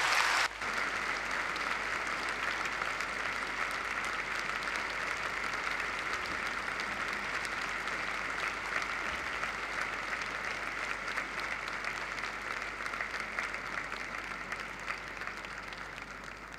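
Large audience applauding: a dense, steady patter of many hands clapping. It is louder for the first half second, drops suddenly to a steady level, and fades near the end.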